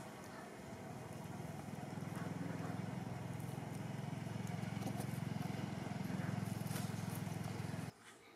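An engine running steadily, with a low pulsing hum that grows louder about a second in and cuts off suddenly near the end.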